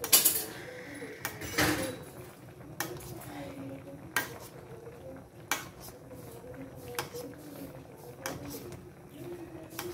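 Metal spoon clinking and scraping against a stainless steel pan about every second and a half, as simmering broth is scooped up and poured over fish.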